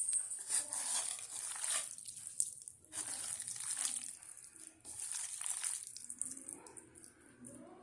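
Raw prawns being mixed by hand in a wet marinade of chilli powder, ginger-garlic paste and lemon juice, making squelching sounds in three main bursts.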